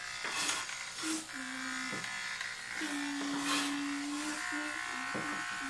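Electric hair clippers running with a steady buzz while cutting a child's hair, with a few brief louder swishes as they pass through it.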